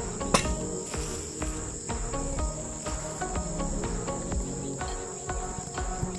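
Steady high-pitched insect chorus in the surrounding vegetation, with a sharp click about half a second in and scattered lighter knocks.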